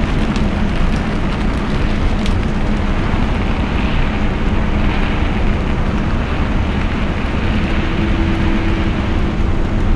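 Car driving in rain: a steady rumble and hiss of tyres on a wet road, with a few sharp ticks of raindrops in the first couple of seconds.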